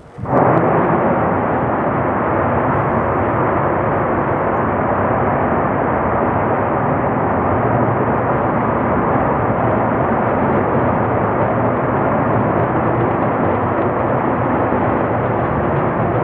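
The Nuri rocket's first stage, four clustered 75-tonne-class kerosene and liquid-oxygen engines, firing together in a ground combustion test. It ignites suddenly just after the start, then runs as a steady, loud noise.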